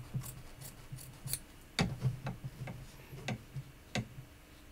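Small curved-blade scissors snipping through quilt batting, with soft rustling of the batting and a few sharp snips about two seconds in and near the end.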